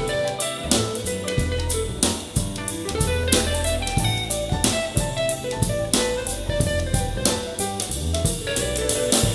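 Instrumental band music with drum kit, bass and guitar over a steady beat, played back through in-ear monitors for a sound comparison.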